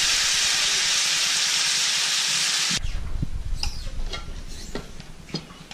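Meat sizzling in a large wok over a wood fire, a loud steady hiss that cuts off suddenly about three seconds in. It is followed by a few light clinks and knocks of plates and cookware.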